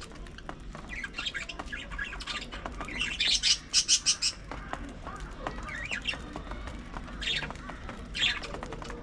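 Budgerigars chirping and squawking in a flock, with a loud run of rapid chirps about three seconds in and shorter calls later.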